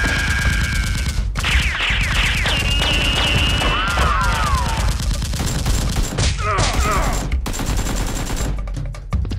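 Dubbed-in gunfire sound effects: rapid automatic fire with several falling whistles in the first half, thinning to scattered single shots near the end.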